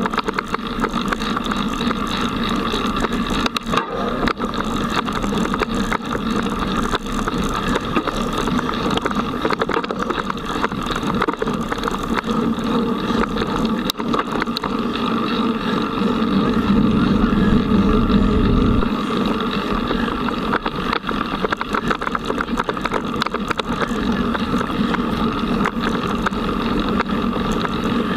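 Mountain bike riding over a dirt forest trail, heard from a camera mounted on the bike: a continuous rolling rumble of the tyres with rattling knocks over bumps. It grows louder and heavier for a few seconds past the middle.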